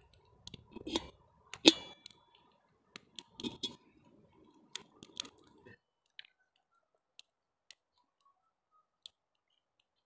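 Knife slicing a tomato held in the hand, with small clicks and knocks as it cuts and pieces drop onto a foil paper plate. A little over five seconds in, this stops abruptly, leaving only a few faint, isolated ticks.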